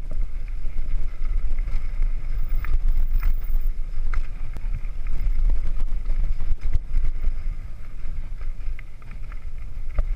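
Wind buffeting on a mountain bike's onboard camera microphone as a downhill bike rolls fast over a dirt trail, with scattered clicks and rattles from the bike over the rough ground.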